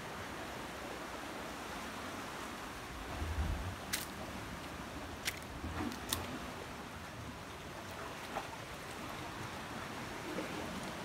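Steady wash of gentle surf. Over it, a few soft footfalls on rock and scattered sharp clicks about four to six seconds in.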